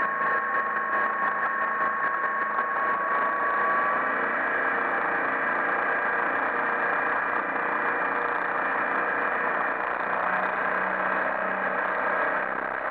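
MerCruiser 140 hp 3.0 L four-cylinder sterndrive engine running steadily under way, with the rush of the boat's wake. A steady high whine sits over it and fades out about four seconds in.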